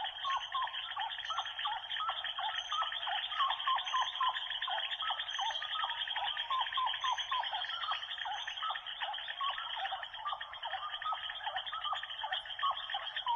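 A dense chorus of many animals calling at once, short chirping calls overlapping several times a second without a break.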